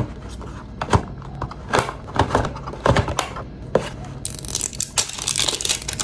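Toy packaging being handled: a few knocks and taps of cardboard and plastic as the capsule is pulled out of the box. Then, from about four seconds in, plastic wrapping on the capsule crinkles and tears continuously.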